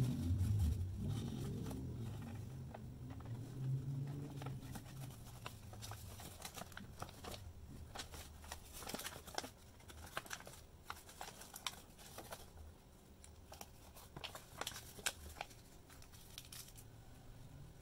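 Brown paper food wrapping being unfolded and handled, crinkling and rustling in scattered crackles.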